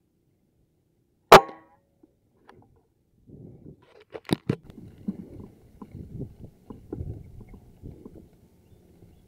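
A single air-rifle shot, a sharp crack with a brief ring, about a second in. About four seconds in come two sharp clicks close together, followed by low uneven noise with scattered small clicks.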